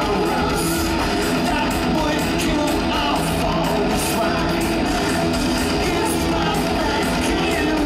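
Live industrial rock band playing loud: distorted electric guitar, a driving drum beat and a male singer's vocals through the PA, heard from the audience.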